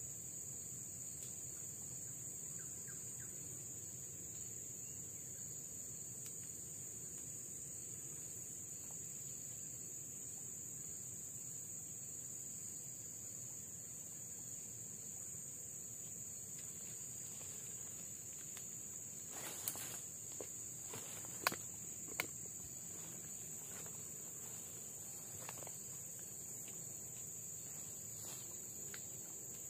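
Steady high-pitched drone of forest insects, unbroken throughout, with a handful of sharp clicks about two-thirds of the way in.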